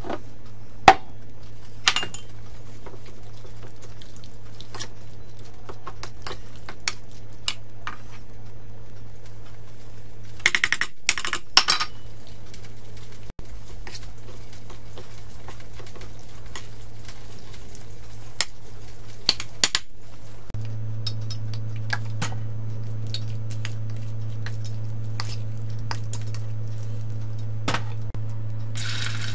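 A metal spoon clinking and scraping in a stainless steel bowl as raw chicken pieces are tossed with cornstarch and seasoning: scattered clinks, with a quick cluster about ten seconds in. A steady low hum runs underneath and gets stronger about twenty seconds in, and at the very end hot oil starts to sizzle as the chicken goes into the wok.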